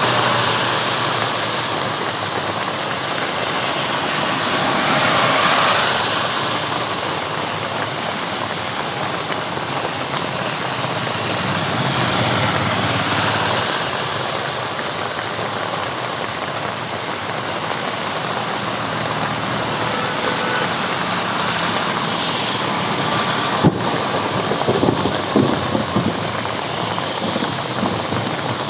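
Road traffic in the rain: a steady hiss that swells as vehicles pass, about 5 and 12 seconds in. A sharp click comes about 24 seconds in, followed by a few short knocks.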